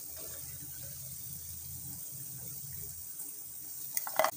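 Hot oil sizzling steadily around rice-batter fritters (choul bara) as they deep-fry in a pan. A couple of sharp clicks come near the end.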